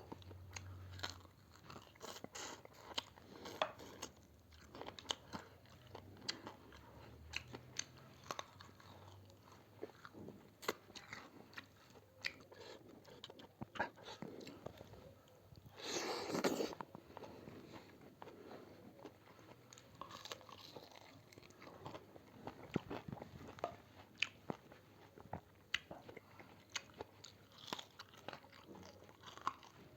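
A person eating chicken thukpa noodle soup close to the microphone: chewing with many small wet clicks, and one louder sound lasting about a second just past the middle.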